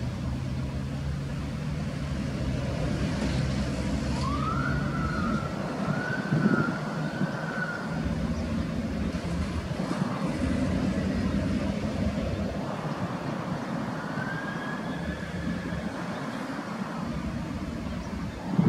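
Road vehicles driving over a railway level crossing: steady engine hum and tyre noise, with a short thump about six seconds in. Twice, after about four seconds and again after about thirteen, a high wavering tone rises and holds for a few seconds.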